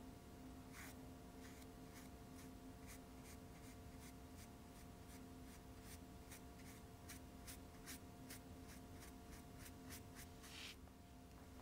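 Small paintbrush dabbing gouache onto sketchbook paper in quick short strokes, about three a second, with a longer stroke near the end.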